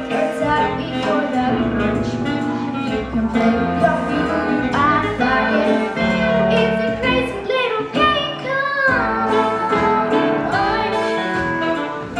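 Show-tune music from a live stage musical: band accompaniment with singing voices sliding between notes.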